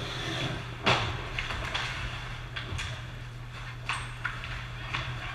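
Ice hockey play: short, sharp clacks of sticks, puck and skates on the ice, about nine of them, the loudest about a second in, over a steady low hum.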